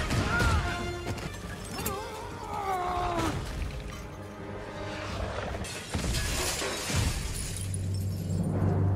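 Film soundtrack of dramatic score and sound effects: a wavering, gliding high tone over the first three seconds, a few sharp crashes, and a low rumble that builds near the end.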